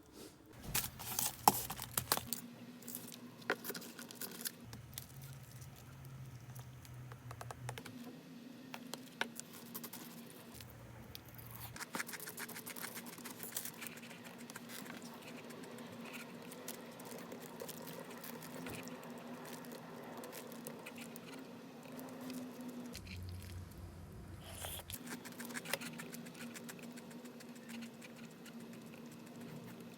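Small irregular taps, clicks and rustles of food and packaging being handled, over a steady low hum.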